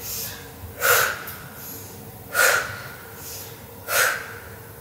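A woman breathing out hard three times, about a second and a half apart, the effort breaths of squats.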